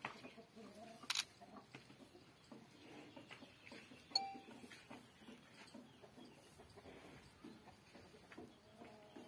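Faint livestock-shed background, with a sharp click about a second in and a short high chirp about four seconds in.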